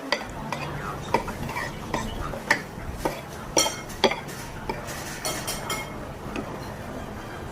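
Spoon and fork clinking and scraping against a plate: a string of irregular sharp clinks, the loudest about 1, 2.5, 3.5 and 4 seconds in.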